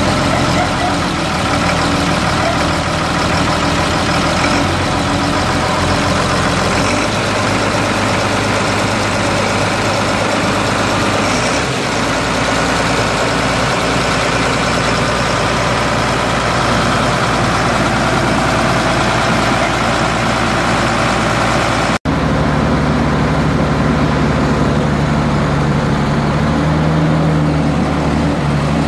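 Large diesel engine idling steadily, heard up close at the open engine bay. After a sudden cut about 22 seconds in, a dump truck's engine carries on at a steady idle.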